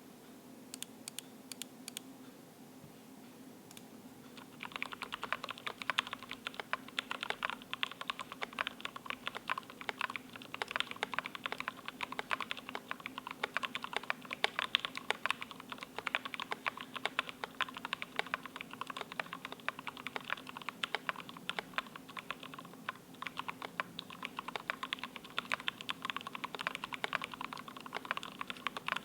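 Typing on an ID80 mechanical keyboard with an acrylic bottom case, PCB foam, lubed Gateron Ink Black V2 linear switches, lubed and clipped stabilizers and PBT keycaps. A few separate key presses come first, then fast continuous typing from about four seconds in.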